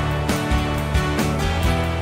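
Background music with held bass notes and a steady beat.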